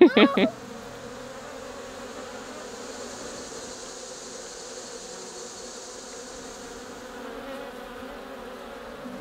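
Steady buzzing of a swarm of bees foraging on a flowering winged sumac tree in full bloom.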